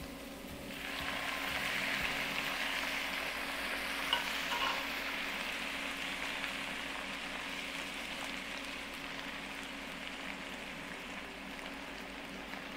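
Shredded cabbage and vegetables sizzling in a hot nonstick frying pan on an induction hob as a little water goes in and they are stirred with a spatula. The sizzle swells about a second in, then slowly eases, with a couple of light clicks of the spatula on the pan around four seconds in.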